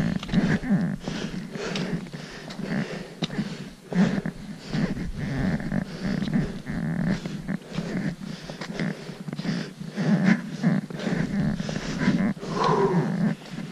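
Hiker's footsteps crunching in packed snow at a steady walking pace, with trekking-pole plants and the hiker's own breathing and clothing rustle close to the microphone.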